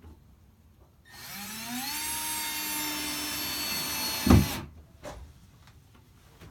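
Power drill spinning up with a rising whine, then running steadily for about three seconds and stopping, with a loud thud just before it stops, as it drives a fastener to mount the xylophone.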